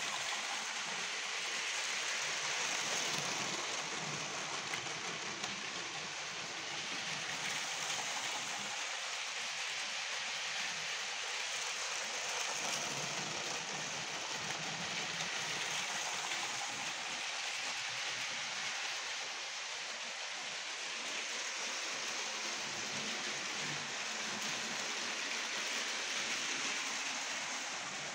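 Motorised Lego train running on plastic track: a steady whirring hiss of motor and wheels that swells slightly and eases as the train passes near and away.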